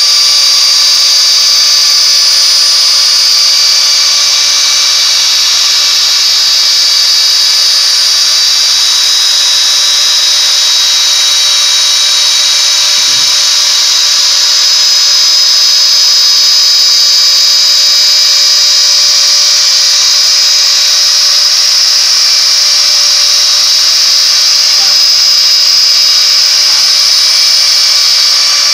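CNC router spindle running at high speed while its bit engraves a plastic sign plate, a loud, steady high-pitched whine.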